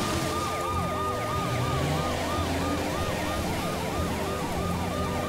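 Rescue-vehicle siren wailing in a fast rising-and-falling yelp, about three sweeps a second, with two overlapping layers, over a steady low rumble.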